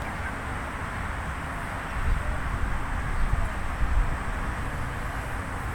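Wind buffeting the microphone: an uneven low rumble with stronger gusts about two to four seconds in.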